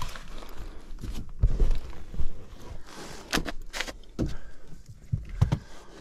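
Irregular knocks, thumps and scuffs of a person shifting about and handling things in a cramped attic, with a few sharp clicks in the middle and near the end.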